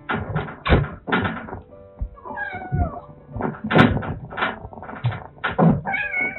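A cat meowing twice, a short call about two and a half seconds in and another near the end, among a string of short knocks and thumps, over soft background guitar music.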